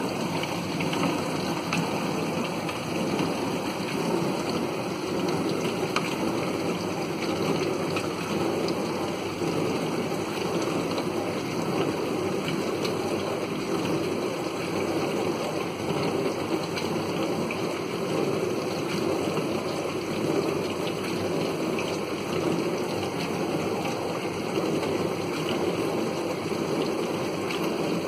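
Siemens dishwasher running its wash cycle: a steady rush of water spraying inside the tub. It is running normally past the point where it used to stop with the E14 error, its flow-rate sensor newly replaced.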